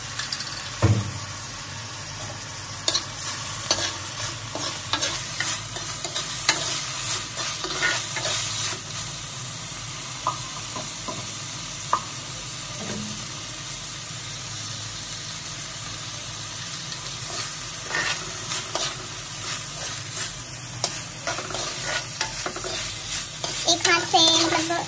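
Chopped vegetables frying in oil in a clay kadhai, sizzling steadily, while a steel ladle stirs and scrapes them against the clay in short irregular strokes. There is a single knock about a second in.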